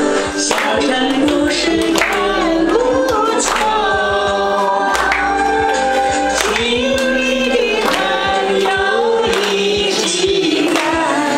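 A man singing a Chinese song into a handheld microphone, with hands clapping along in time.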